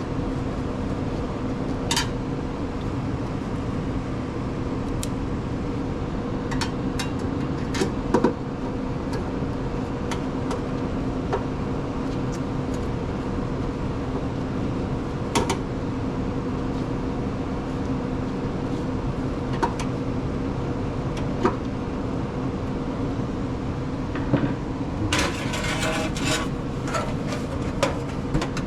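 Steady hum of a running central air system, with a constant low tone, under scattered clicks and metallic knocks of tools and parts being handled; a quick run of rattling clicks comes near the end.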